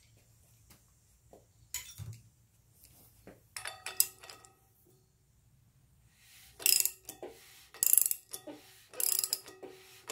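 Socket ratchet clicking in several short runs as it turns the crankshaft of a Datsun L28 straight-six, with the runs coming closer together in the second half.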